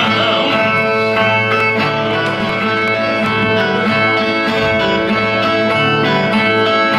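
Guitar-type plucked string instrument playing a repeated instrumental passage of Northeastern Brazilian cantoria, between sung verses.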